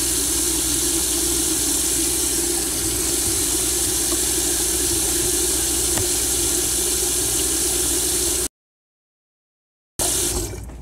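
Kitchen sink faucet running in a steady, full stream while dishes are washed. The sound cuts out to dead silence about eight and a half seconds in and comes back just before the end.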